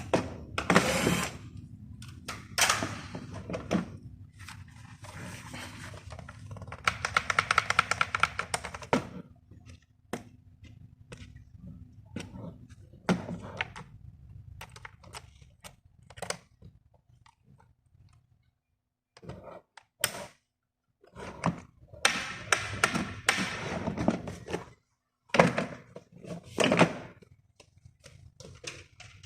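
Clicks, knocks and thunks of hands and tools working on a door lock, with a run of rapid clicking lasting about two seconds, about seven seconds in.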